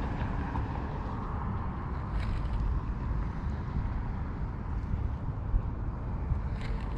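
Steady low outdoor rumble, with two faint clicks, one about two seconds in and one near the end.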